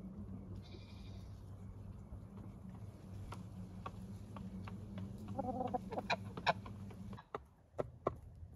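Chickens clucking softly: one quavering call about five seconds in, and scattered small sharp clicks, over a steady low hum that cuts off near the end.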